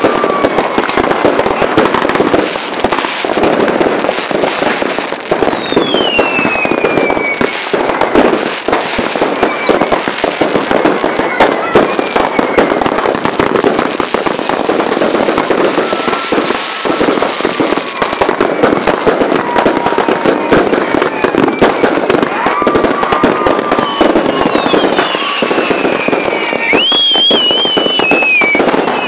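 A fireworks barrage going off close by: rapid, continuous crackling and banging, with whistles falling in pitch over it. Near the end a loud, shrill whistling firework shrieks, rising sharply and then wavering.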